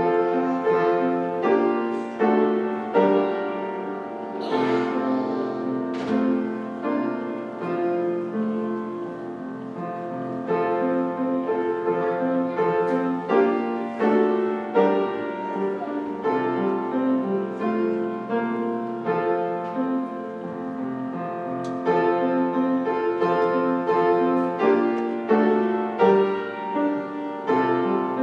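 Piano playing, melody notes and chords struck one after another at a moderate, even pace.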